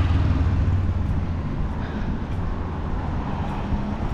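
Street traffic: a motor vehicle's engine running close by, a low rumble that eases after about a second, over steady road noise.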